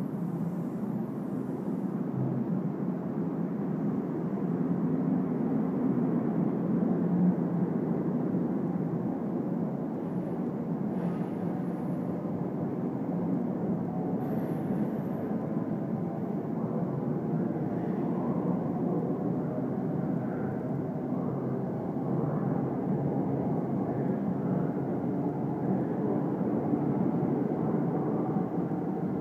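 NJ Transit Comet passenger coaches rolling past a platform as the train departs, a steady rumble of steel wheels on rail.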